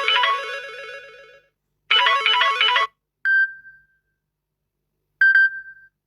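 Samsung Galaxy A04s ringtones played one after another. A melodic ringtone fades out, a one-second snatch of another melody follows, then two single chime tones sound about two seconds apart, each dying away quickly.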